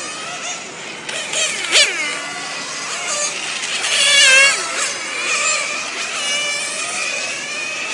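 Several 1/10-scale nitro RC touring cars' small two-stroke glow engines running as a high-pitched whine, their pitch rising and falling as they rev through the corners. The pitch drops sharply about two seconds in and again about four seconds in as cars sweep past close by.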